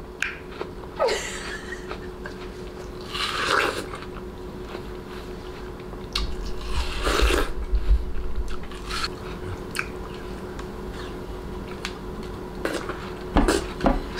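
A person biting into and chewing watermelon: a few wet, crisp bites a few seconds apart, with chewing in between.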